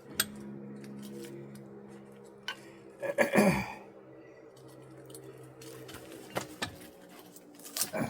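Metal parts of an electric motor being pulled apart for scrap: scattered clinks and clicks, with one louder scraping clatter about three seconds in, over a steady low hum.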